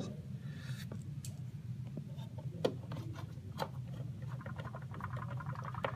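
A T10 Torx screwdriver driving small screws into an espresso machine's plastic top housing: scattered light clicks and taps, with a faint rasp of the screw turning near the end, over a steady low hum.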